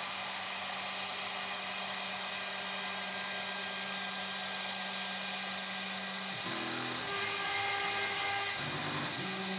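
CNC router spindle running steadily and cutting acrylic sheet. The machine's tone holds for several seconds, then shifts in pitch in steps about two-thirds of the way through as its movement changes.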